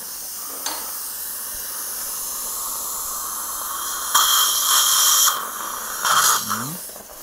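Dental surgical suction tip hissing steadily in the mouth, then about four seconds in a louder slurping hiss for about a second as it draws up saline squirted from an irrigation syringe into the extraction site.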